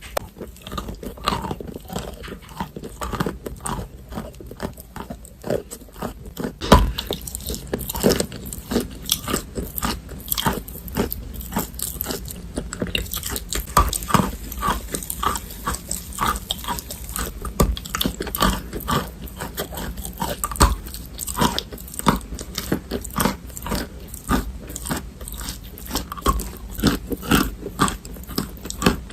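Close-up crunching of chalk being bitten and chewed in big bites, a dense run of sharp, irregular crackles with a louder snap about seven seconds in.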